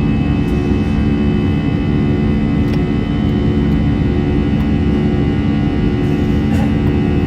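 Jet engines of an Airbus A320-216, CFM56-5B turbofans, heard from inside the passenger cabin: a steady loud drone over a low rumble, with several held engine tones.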